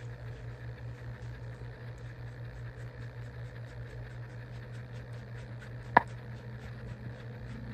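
Steady low hum with faint ticking about four times a second, and one sharp metallic click about six seconds in as the RATMG08 nose piece is worked loose on a 6 mm Allen key held in a vise grip.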